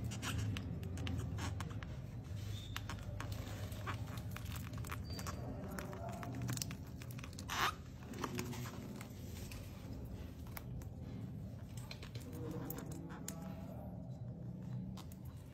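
Knife cutting and prying along the seam of a Sultan durian, the thick spiky husk crackling and splitting with scattered clicks and one sharper crack about halfway through. A steady low hum sits underneath.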